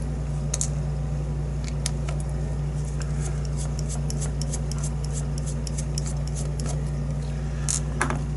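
Many small, irregular metallic clicks and ticks from a picked-open challenge padlock and small hand tools being handled at the bench, over a steady low hum.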